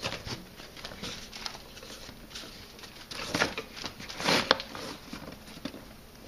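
Fibre rush strands rustling and scraping against the woven rush seat as a strand is pulled over the rail and pressed into place, in irregular short strokes with two louder swishes a little past the middle.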